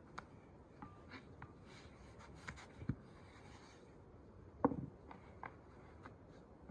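Thin dough being rolled out on a wooden board with a long thin rolling pin: faint rubbing and small taps, with two light knocks, the louder one about two-thirds through.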